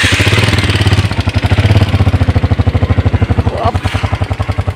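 Small motorcycle engine idling just after being started: a steady, rapid putter.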